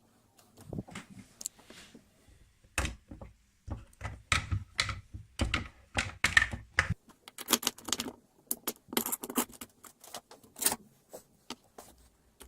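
A rapid, irregular run of clicks and light knocks from hard objects handled against one another, heavier in the first half and sharper and more clattery in the second.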